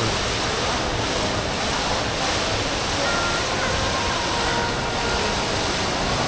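Steady rushing of water falling from an indoor ceiling-mounted waterfall, like heavy rain pouring down.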